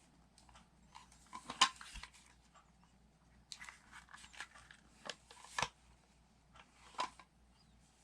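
Small plastic toy pieces being handled and set down: several sharp clicks and taps, the loudest about one and a half seconds in, with light rustling and scraping in between.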